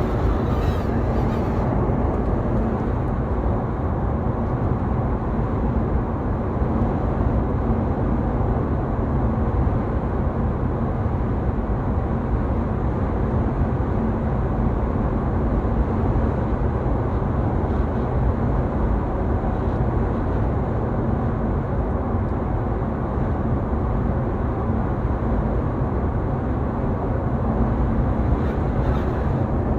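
Steady road and wind noise in a Tesla Model S 85 cabin with a low, even whine running through it, a whine the owner traces to the sunroof.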